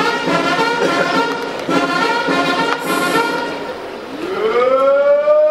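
Brass instruments playing slow held notes, with one note sliding upward and held near the end.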